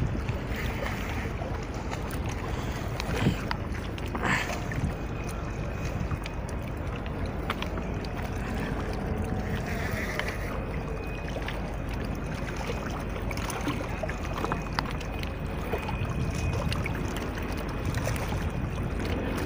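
Steady wind rumble on the microphone over moving water, with a few faint clicks and knocks from handling the fishing rod and reel during the fight with a hooked fish.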